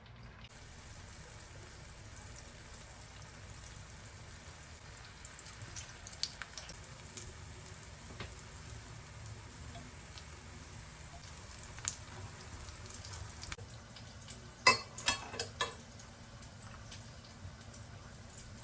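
Food frying in a pan, a steady sizzling hiss, with scattered light clicks of utensils and a quick run of louder clinks about fifteen seconds in.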